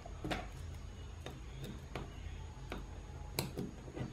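A few light clicks and taps of small hand tools and metal lens parts being handled on a desk, spaced irregularly, with one sharper click about three and a half seconds in.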